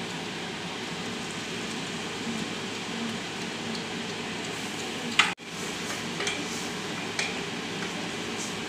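Ingredients frying and sizzling in ghee in a small pan, stirred with a wooden spatula. A few sharp clacks of the spatula against the pan, the loudest just after midway.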